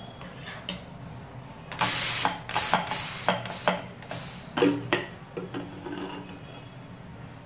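Aluminium bar-clamp pressure cooker being opened after cooking rice. A short hiss of leftover steam comes about two seconds in, then a quick run of metallic clicks and clanks as the clamp screw is turned and the lid is worked loose.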